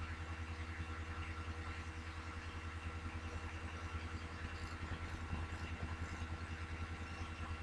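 A kitten purring close to the microphone: a steady, low, rapidly pulsing rumble.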